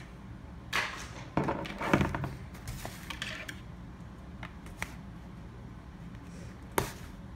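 Cardboard box of jumbo wooden craft sticks being worked open: scratching and tearing at the sealing tape with handling rustles, then quieter fiddling with a few small clicks and one sharp click near the end.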